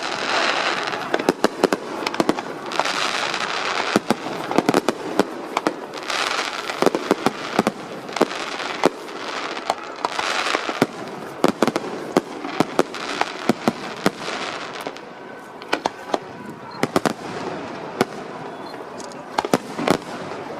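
Aerial fireworks shells bursting in quick succession: many sharp bangs, with bouts of crackling every few seconds. The barrage thins out and gets quieter after about fifteen seconds.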